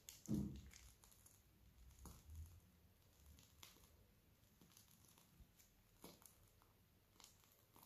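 Near silence with a soft low thud just after the start, then faint scattered rustles and squishes from a cloth piping bag being squeezed to pipe cream rosettes.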